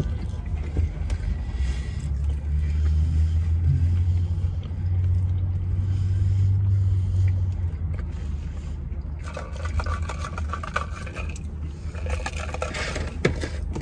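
Steady low rumble inside a car cabin, with rustling and crinkling of food packaging from about nine seconds in.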